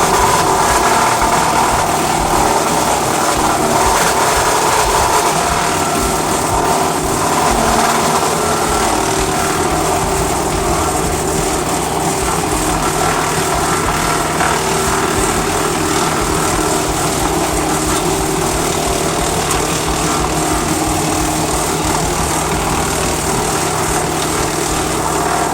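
Woodland Mills WC88 wood chipper, driven off a Kubota L4701 tractor, running steadily under load as its hydraulic power feed pulls logs into the chipper.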